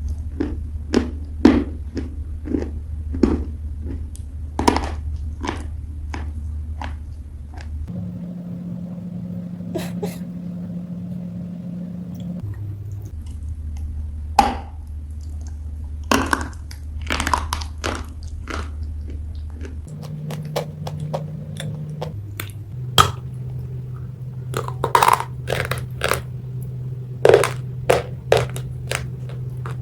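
Wet gray clay (gachi) being bitten and chewed close to the microphone: irregular crunches and wet, squishy mouth clicks. A steady low hum runs underneath and changes pitch abruptly several times.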